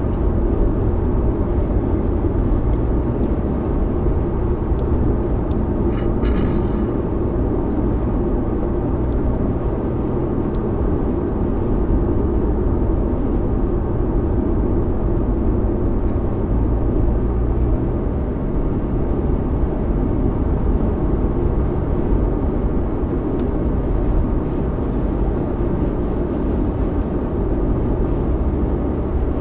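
Steady low rumble of road and engine noise inside a car cruising at highway speed, mostly tyres on pavement. A brief rattle of clicks sounds about six seconds in.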